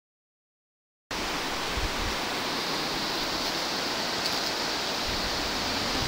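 Mountain stream rushing over a stony riverbed: a steady hiss of flowing water that starts about a second in.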